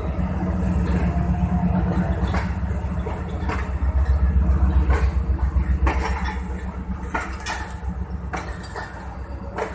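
Passenger train coaches rolling slowly along the track with a continuous low rumble, and irregular metallic clacks as the wheels pass over rail joints.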